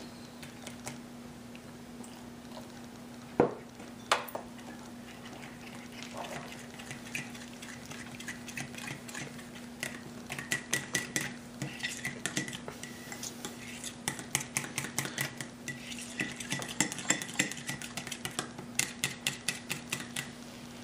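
A metal whisk or fork beating thick gram-flour (besan) batter in a glass bowl, clinking against the glass in quick runs of strokes that grow busier from about halfway through, to work out the lumps. A single knock about three seconds in, over a steady low hum.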